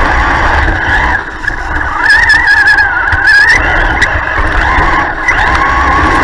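Traxxas Stampede 4x4 RC truck's electric motor and gears whining at high pitch. The whine wavers and climbs between about two and three and a half seconds in as the throttle changes, and dips briefly a little after a second in.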